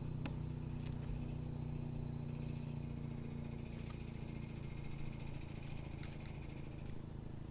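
Wood chipper's engine running steadily with a low hum, with a few faint clicks and no heavy chipping.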